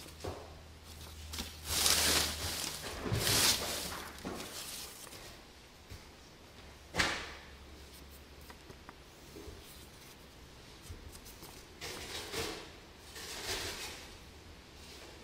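Loose shredded paper and paper envelopes rustling and crinkling as they are handled and shifted by hand, in several short bursts with quieter stretches between, the sharpest about seven seconds in.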